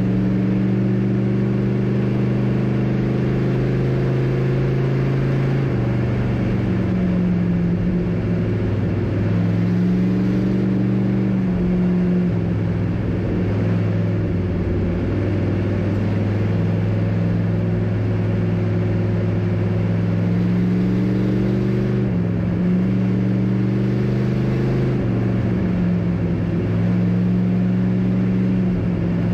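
A race car's engine heard from inside its cockpit, running loud and steady. Its note shifts up and down every few seconds as the throttle is worked through the laps.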